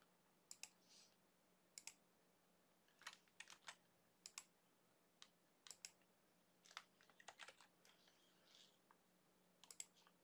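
Faint, scattered clicking of a computer mouse and keyboard, many of the clicks in quick pairs, over a faint steady hum.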